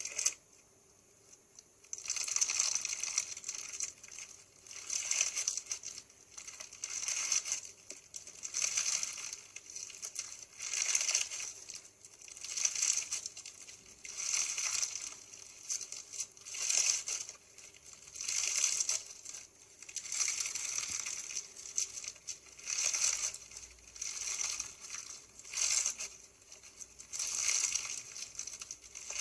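Crunchy slime being squeezed and pressed, giving a crackling crunch with each press. The presses start about two seconds in and repeat about every one and a half to two seconds.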